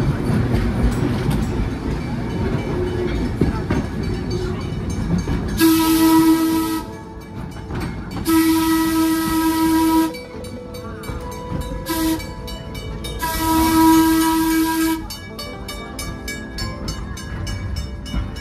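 Open electric trolley car running along the track, then its whistle sounding the grade-crossing signal: two long blasts, a short one and a long one, all at one pitch with a breathy hiss.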